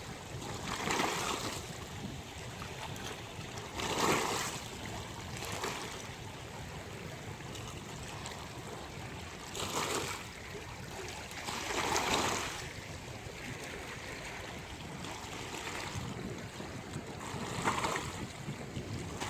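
Sea waves breaking and washing onto a beach, a steady rush of surf with louder surges every few seconds, about five in all.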